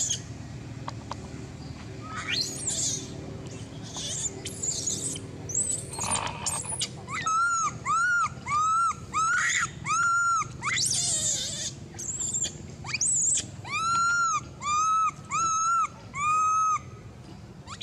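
Baby long-tailed macaque crying: high rising squeals at first, then two runs of short, arched, whistle-like cries in quick succession, about two a second, with a short break between the runs. These are the distress cries of an infant wanting to nurse.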